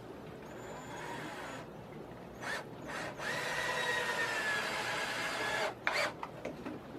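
Cordless drill driving a screw into a pine board: two short blips, then a steady run of about two and a half seconds whose pitch sags slightly as the screw goes in, followed by a couple of sharp clicks.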